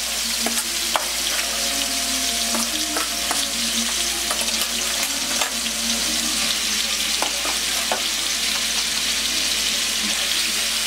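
Hot oil sizzling steadily in a wok as shredded banana heart is pushed off a metal tray into the sautéed garlic, onion and tomato. Frequent sharp clicks and scrapes of a metal spatula against the tray and pan run through it.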